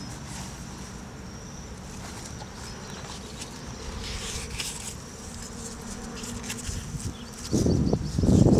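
A flying insect, a bee or fly, buzzing steadily close by. About seven and a half seconds in, a much louder close-up low noise sets in.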